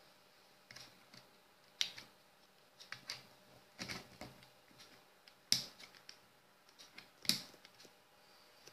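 Irregular light clicks and knocks of hard plastic on a wooden desk, about eight in all, as a USB hub and its cables are handled and moved.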